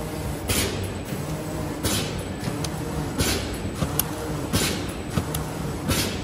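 Mailer bag making machine running: a steady mechanical hum with a short hiss about every second and a half, five times, once per machine cycle.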